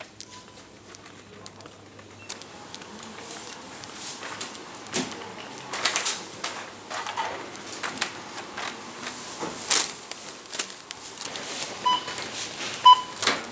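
Steady supermarket background noise with scattered knocks and rustles. Two short electronic beeps about a second apart near the end.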